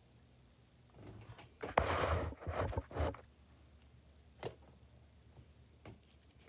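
Handling noise at a table: a stretch of rustling with a few light clicks and knocks, then a single small click near the middle.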